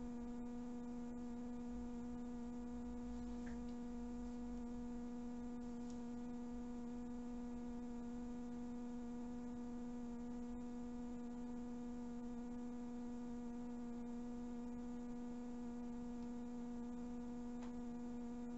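Steady electric hum of O27 toy electric trains running on a tinplate layout, with a few faint clicks.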